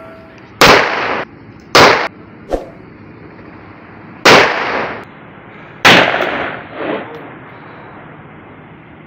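30 bore (7.62×25 mm Tokarev) pistol fired four times, in two pairs about a second and a half apart, each loud shot followed by a short ringing decay, with a small sharp click after the second shot.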